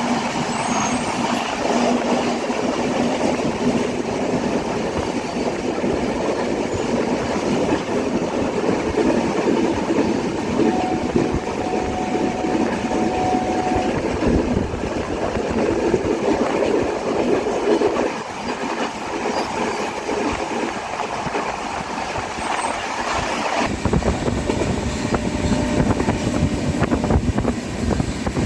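Passenger express train running on the rails, heard from on board: a steady rumble and rattle of wheels on track. The low rumble grows heavier about three-quarters of the way through.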